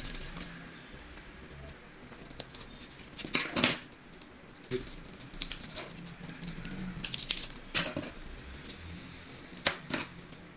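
A microSD memory card's packaging being handled and opened by hand: scattered clicks and crackles, with louder snaps about three and a half seconds in, again around seven to eight seconds, and near the end.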